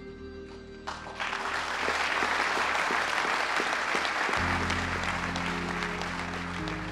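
Audience applauding, starting about a second in and slowly fading. Soft background music with held chords comes in over the applause a little past the middle.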